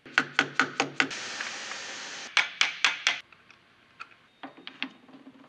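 Soft-faced mallet tapping a workpiece held in a metal lathe's chuck: a quick run of five knocks, about a second of steady hiss, then another quick run of four knocks. Faint small metallic clicks follow near the end.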